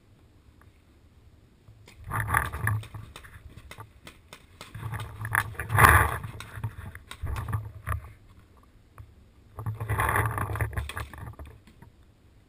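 Rustling and crunching of a paintball player moving over the bark-chip ground between bunkers, in four bursts of about a second each, with rumbling handling noise on the mounted camera. The loudest burst comes about six seconds in, as he drops low behind cover.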